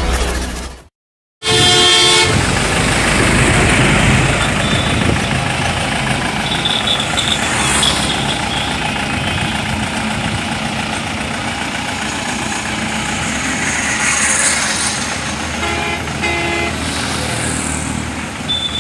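The tail of the intro music cuts off about a second in. Then comes steady roadside traffic noise, with vehicle horns tooting a few times.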